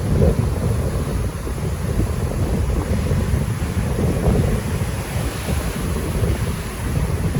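Wind buffeting a phone's microphone in a steady, gusting rumble, over the rush of sea surf.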